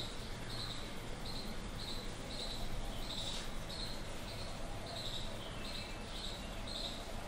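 Short high chirps repeating evenly, a little under two a second, over a faint hum, with a brief scratch about three seconds in.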